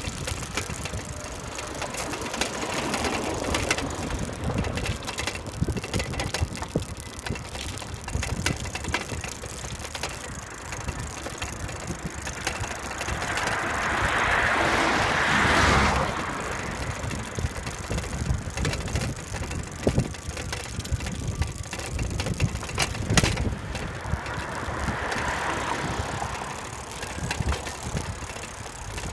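Bicycle rolling over asphalt and paving stones, its frame and handlebar rattling and clicking over the bumps against a steady rush of road noise. A louder rushing swell builds about halfway through and cuts off quickly, with a smaller one later.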